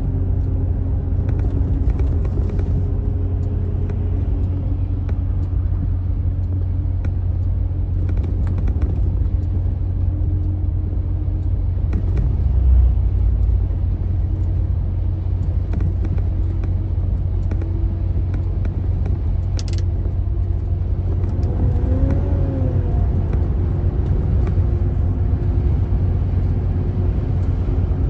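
A motor vehicle's steady low engine and road rumble while driving, with a short rising-then-falling tone about 22 seconds in.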